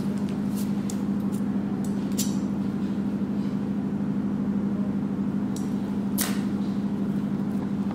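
A steady low electrical or mechanical hum, with a few faint light clicks, the clearest about six seconds in.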